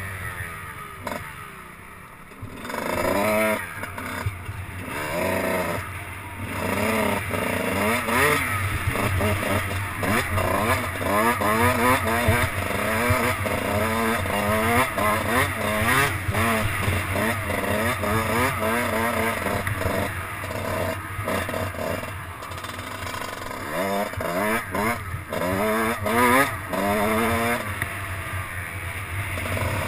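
Dirt bike engine heard from the rider's helmet, repeatedly revving up and dropping back as the rider works the throttle through the gears, with brief off-throttle lulls.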